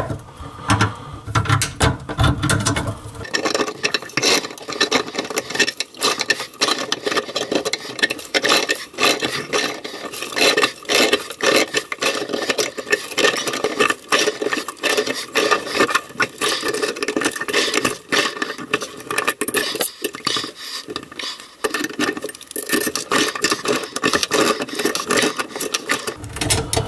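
Hand tools scraping and clicking against a stiff pop-up drain nut under a bathroom sink as it is worked loose a little at a time, a dense, uneven run of metal scrapes and clicks. The nut is turning slowly rather than spinning off freely.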